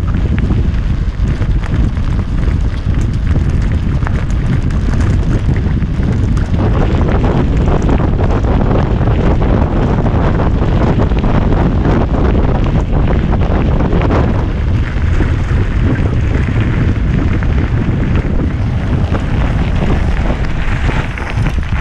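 Wind buffeting the action camera's microphone at riding speed, over the steady rumble and rattle of a mountain bike rolling fast down a gravel trail.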